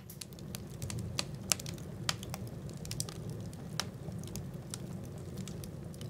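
Logs crackling in a small wood-burning stove: irregular sharp snaps and pops over a low steady rumble.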